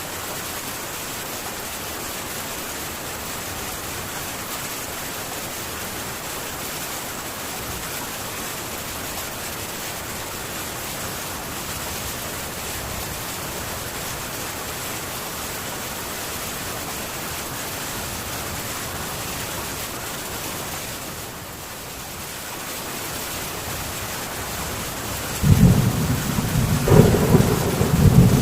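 Steady heavy rain falling on a metal tin roof. About 25 seconds in, a loud low rumble of thunder breaks in and carries on.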